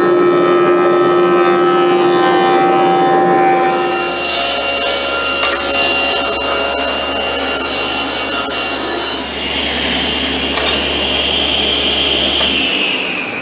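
A jointer planing the edge of a glued-up plywood board, then a cabinet table saw ripping the board to width, with a hissy cutting noise over the motor hum. Near the end the saw's high whine falls in pitch.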